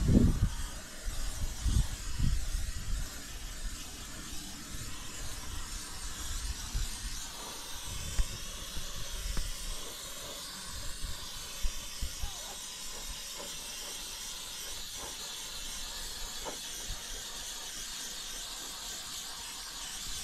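Aerosol spray can of red paint hissing steadily as paint goes onto wooden boards, with a few low thumps and knocks from handling the can and boards near the start.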